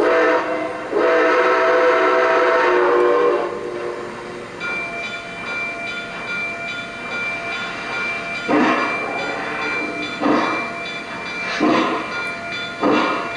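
Lionel Legacy model of Nickel Plate Road Berkshire #765 sounding its recorded Nathan six-chime steam whistle in one long, loud blast from its onboard sound system, then chuffing slowly as the locomotive starts off, the chuffs coming a little faster toward the end.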